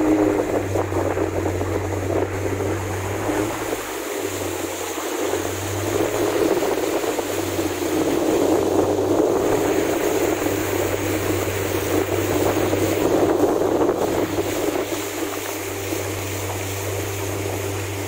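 A small boat under way, with water rushing and splashing along the hull, the steady low hum of an electric outboard motor, and wind buffeting the microphone.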